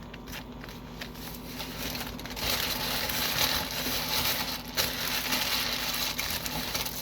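Sandwich wrapping crinkling and rustling as a sub is handled and wrapped up, getting louder and busier about two and a half seconds in.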